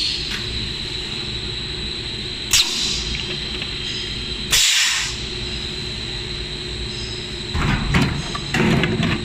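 Bottle blow molding machine running: a steady hum with a high whine, two sharp hisses of compressed air about two seconds apart, then clunking near the end as the mold works through its cycle.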